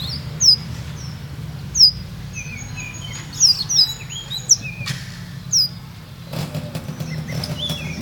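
Van Hasselt's sunbird (kolibri ninja) calling in short, high, sharply falling chirps, about half a dozen spread across the stretch, some in quick pairs. A rapid run of clicks comes in near the end.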